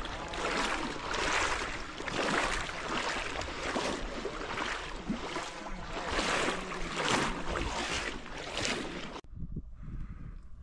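Rhythmic swishing and splashing of lake water as someone moves through it, one surge about every second and a half, with wind on the microphone. It cuts off abruptly about nine seconds in to a much quieter outdoor background.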